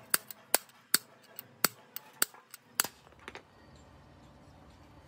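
Repeated sharp hammer blows on metal, two to three a second, stopping about three seconds in. A steady low rumble is left after them.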